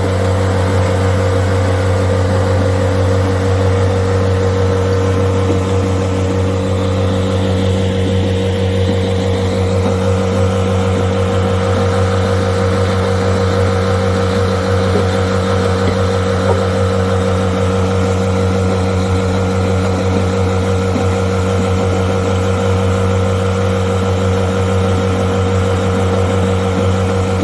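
Diesel engines of a CR450 crusher and an excavator running steadily with a constant low hum, with the pitch of the upper tones dipping and rising briefly about a third of the way in.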